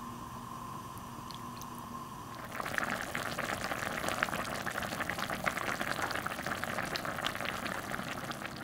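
Beef soup boiling hard in an earthenware ttukbaegi pot, with dense bubbling and popping. The bubbling starts suddenly about two and a half seconds in, after a quieter steady hiss.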